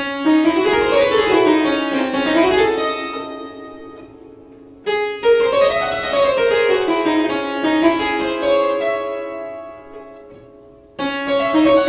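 Harpsichord played in quick runs of notes that climb and fall, in three phrases that each start sharply and die away over a few seconds.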